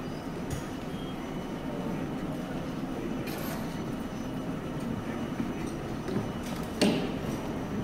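Kagoshima City streetcars standing at a tram stop, a steady low hum and rumble from the trams' equipment. There is a short hiss about three seconds in and a sharp metallic clank near the end.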